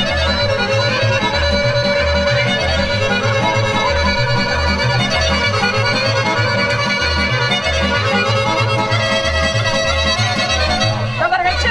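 Instrumental music with a steady bass beat and a held melody line.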